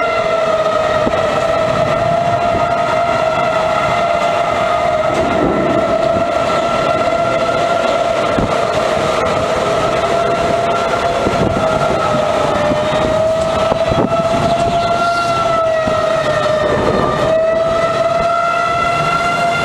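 Outdoor tornado warning siren sounding a steady alert: one continuous tone, loud, its pitch wavering slightly and dipping a little now and then.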